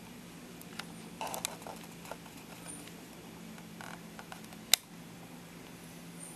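Scattered light clicks and taps as a Papillon puppy is handled and lifted, with one sharp click about two-thirds of the way in, over a steady low hum.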